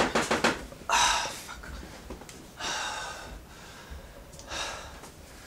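A man breathing hard and gasping: a quick run of short breaths at the start, then three long, heavy breaths about a second and a half apart.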